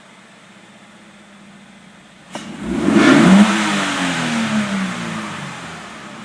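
Scion FR-S's flat-four engine, fitted with an Injen cold air intake, idling and then revved sharply once about two seconds in. The revs then fall back toward idle over about three seconds.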